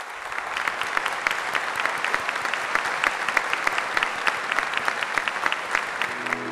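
Large congregation applauding, swelling over the first second and then holding steady as a dense patter of many hands clapping.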